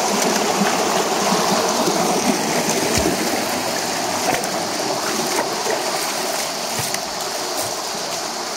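Shallow stream water rushing steadily over rocks and pebbles, pouring through a small cascade between boulders; it eases off a little over the second half.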